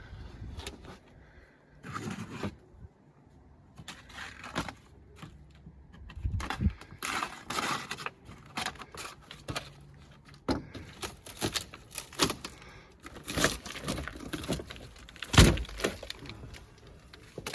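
Rotten wall sheathing and building paper being pried and broken off wall framing: irregular cracking, knocking and tearing, with one heavier thump near the end.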